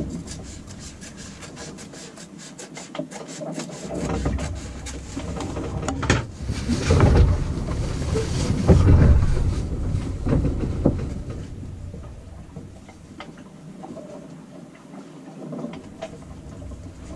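Scissors snipping through synthetic cloth and the cloth rustling as it is handled. Fine quick clicks come first, then louder rustling and crumpling with a low rumble as the cloth is lifted and folded, dying down toward the end.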